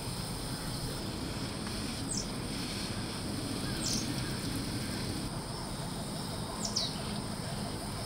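Garden hose spray nozzle showering water onto potted plants and soil, a steady hiss. A bird gives three short, falling chirps, about two seconds, four seconds and seven seconds in.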